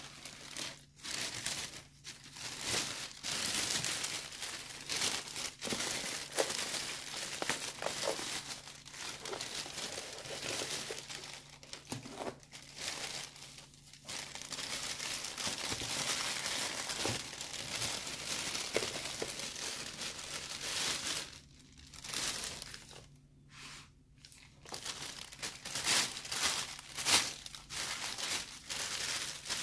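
Thin plastic carry-out bag crinkling and rustling as hands open it, reach in and pull it about, with a few short pauses about three quarters of the way through.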